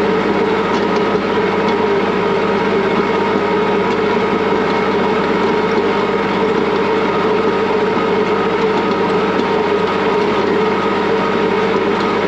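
Diesel tractor engine running steadily at an even pitch.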